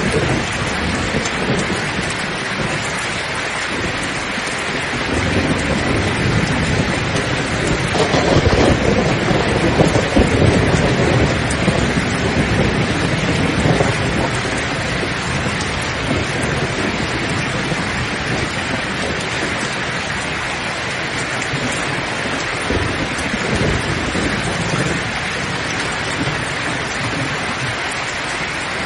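Steady heavy rain with rolling thunder: a low rumble builds about a fifth of the way in, is loudest about a third of the way through, and trails off, with fainter rumbles later.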